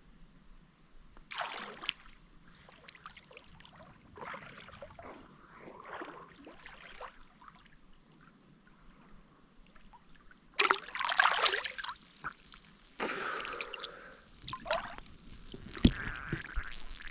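Water splashing and trickling in irregular bursts, a few small ones at first and the loudest from about ten seconds in.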